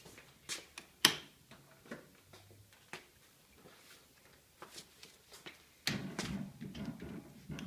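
Handling noise: scattered light clicks and knocks, with one sharp click about a second in, then from about six seconds a denser run of rattling and rubbing.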